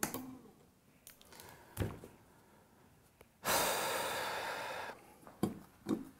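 A long sigh of frustration, one breathy exhale lasting about a second and a half from about halfway through, with a few faint knocks and clicks of handling before and after it.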